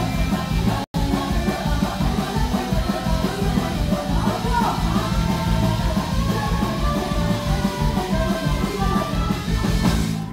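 Rock band playing live with sung vocals, loud and dense. There is a split-second dropout about a second in, and the music breaks off abruptly at the very end.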